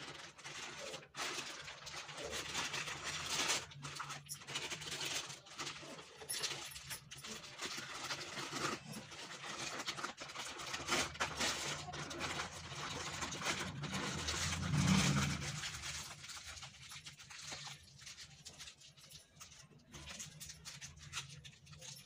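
Thin plastic sheet crinkling and rustling as it is wrapped around a rolled sandwich and pressed tight by hand.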